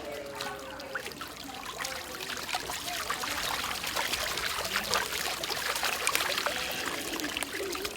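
Water splashing and spraying in a children's water fight, a steady rush with many small splats, slowly getting louder.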